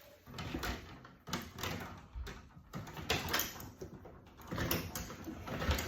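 Irregular knocks, scrapes and rattles of hand work at an electrical panel as old wires and conductors are pulled and handled, with a sharper knock near the end.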